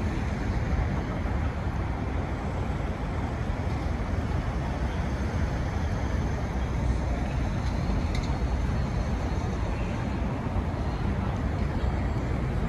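Steady city street traffic noise: a constant low rumble of passing cars with a wash of hiss above it.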